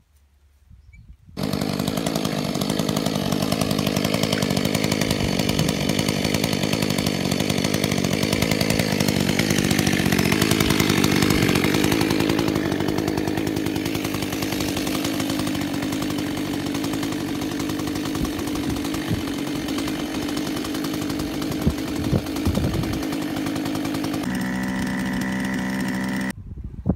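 Two-stroke chainsaw running at speed, cutting into juniper roots at ground level. It starts about a second and a half in, its pitch dips and recovers midway under the load of the cut, and it cuts off abruptly near the end.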